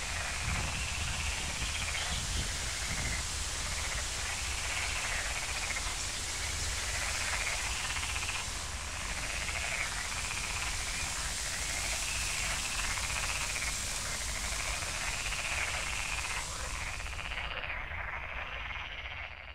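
Frogs croaking in a chorus of repeated calls, about one a second, over a steady hiss. The hiss drops away near the end and the whole sound fades out.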